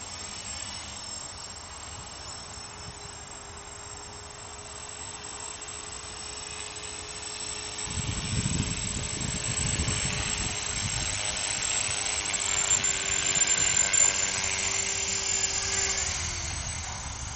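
Electric RC helicopter (CopterX 450 PRO) with its brushless motor and belt-driven rotors whining steadily in flight, growing louder from about eight seconds in as it comes close. Near the end the whine falls in pitch as the rotors spool down after it lands.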